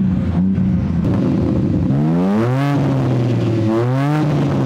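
BMW M4 Competition's twin-turbo straight-six running through a new Remus sport exhaust, with a rough, loud note. Twice the engine climbs quickly in pitch, then falls back to a steady lower note.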